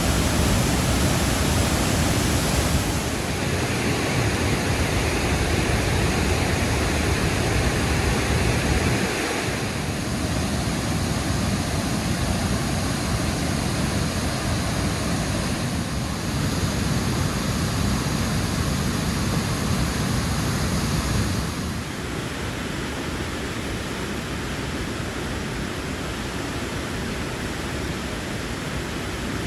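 Waterfall in flood after heavy rain: a continuous heavy rush of muddy floodwater pouring down rock cascades. Steady noise that shifts abruptly in loudness and tone a few times and is a little softer over the last third.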